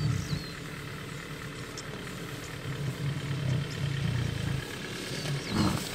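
Vehicle engine idling with a steady low hum that swells now and then, with a few faint bird chirps above it.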